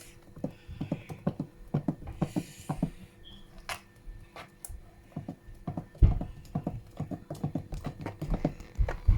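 Spoon mixing thick blended bean paste in a bowl, with quick irregular clicks and knocks of the spoon against the bowl and a louder knock about six seconds in.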